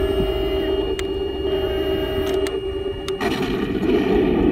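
Heng Long M1A2 Abrams RC tank's sound unit playing a steady simulated engine idle through its small speaker, with a few sharp clicks. About three seconds in, a simulated main-gun shot breaks in: a loud blast lasting over a second.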